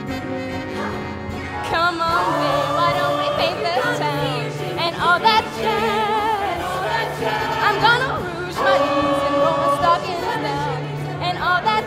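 Music: a chorus of voices singing held, wavering notes over band accompaniment, getting louder about two seconds in.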